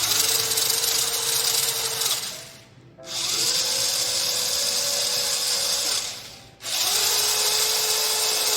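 Small DC motors of an Arduino joystick-controlled car whining as they drive, in three runs of a few seconds each with short stops between, the pitch rising briefly as the second run starts.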